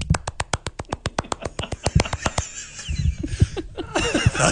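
A rapid run of sharp slaps, about seven a second, that turns into a denser, rougher flurry about two seconds in. It is a funny-sound contest entry that the host takes for someone hitting his stomach.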